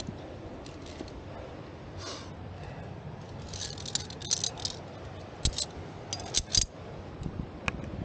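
Metal clinking and jangling of via ferrata carabiners and climbing gear, in a few short clusters of sharp clicks.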